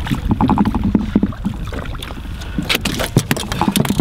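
A triggerfish splashing at the surface as it is hauled aboard an inflatable boat, then a run of sharp knocks and slaps in the second half as it flaps on the deck, over a steady low wind rumble on the microphone.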